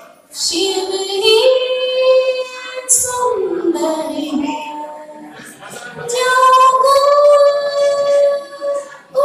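A woman singing solo into a microphone, holding long notes that slide in pitch, in two long phrases, the second starting about six seconds in.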